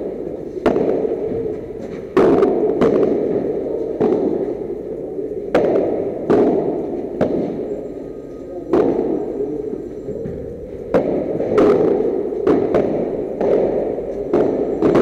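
Padel rally: the ball struck back and forth by solid padel rackets, a sharp hit every half second to second and a half at uneven intervals, each one echoing in the enclosed court hall.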